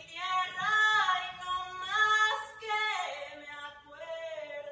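A single voice singing an unaccompanied slow melody of long held notes that step up and down in pitch, softer in the last second or so.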